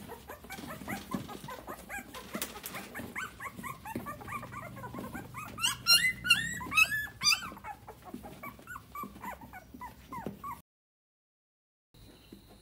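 Dog whimpering and yipping in many short, high calls, with a louder flurry of yelps around the middle. The sound cuts off suddenly near the end.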